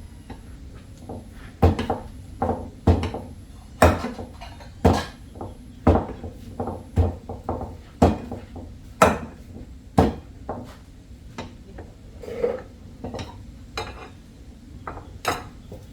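A kitchen utensil knocking against a pot or dish at about one knock a second, sparser near the end, while mashed cassava is worked.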